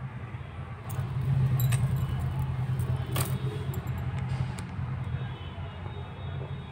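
Steady low background hum with a few light clicks and clinks, typical of metal jewellery and beads being handled.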